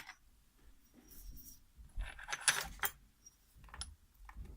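Light metallic clicks and clinks of a pin-tumbler lock's small parts being handled as the lock is taken apart, with a cluster of sharp clinks a little past halfway and a couple of small ticks near the end.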